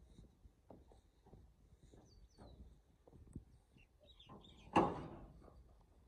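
Footsteps scuffing along a dirt path, with a few faint bird chirps and one short, louder burst of noise about five seconds in.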